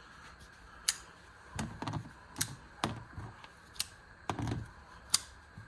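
Folding pocket knives being handled: about eight sharp, irregular clicks, some with a light knock under them.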